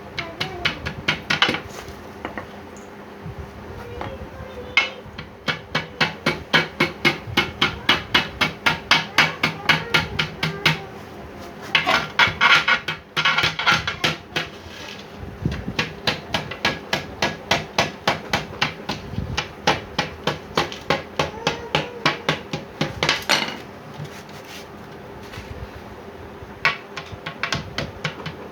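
Hammer striking wood in long, steady runs of quick blows, about three a second, with a few short pauses between runs.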